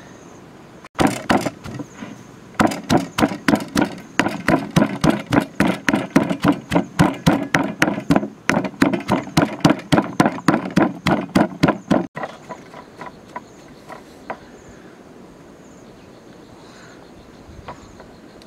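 Pestle pounding chillies into a paste in a stone mortar: a steady run of knocks, about three to four a second, which stops about twelve seconds in.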